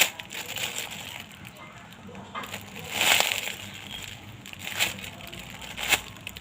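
Hands handling a foam squishy toy: a few short crinkling rustles, the loudest about three seconds in, over steady background noise.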